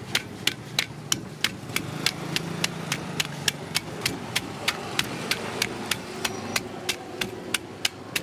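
Cleaver blade scraping the scales off a giant grouper: quick, sharp scraping strokes in an even rhythm, about three to four a second, with the scales flicking off.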